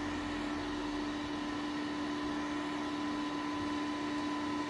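Anycubic Photon resin 3D printer running at the start of a print: its cooling fan whirring and the Z-axis stepper motor lowering the build platform. The result is a steady hum with one clear pitch and a fainter higher tone.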